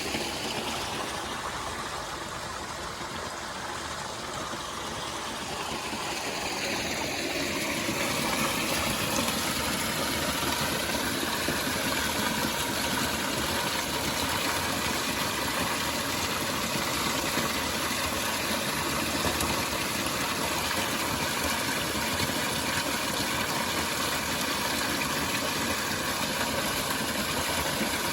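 Waterfall: a steady rush of falling water, growing a little louder about seven seconds in and then holding even.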